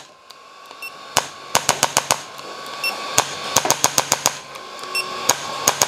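Handheld chiropractic spinal adjusting instrument firing against the back. It gives sharp clicks, some single and some in quick runs of several a second, with one run about halfway through and another starting near the end.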